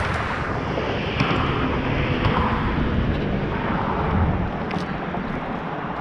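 Road traffic on the bridge: a steady rumbling noise of passing vehicles that eases a little in the last second or two.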